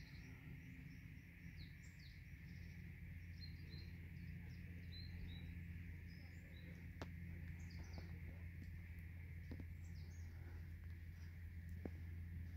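Small birds chirping in short, scattered calls, faint, over a steady hiss and a low steady hum.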